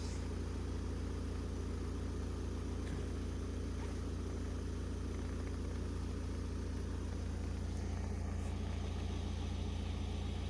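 Opel Combo's 1.7 diesel engine idling steadily.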